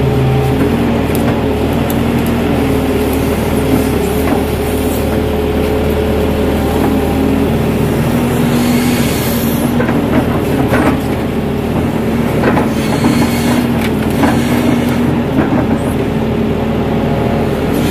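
Crawler excavator's diesel engine and hydraulics running steadily under load while the bucket digs and lifts wet soil, with a few knocks and scrapes from the bucket in the middle stretch.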